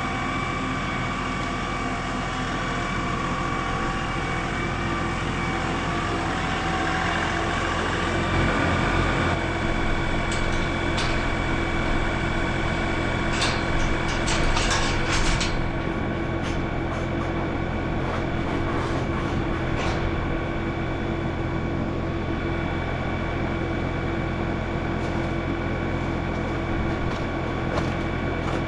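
Tractor engine running steadily, with a few rattles and clanks partway through.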